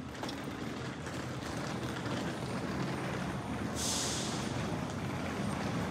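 Steady rumble of a running vehicle, with a short sharp hiss of air about four seconds in.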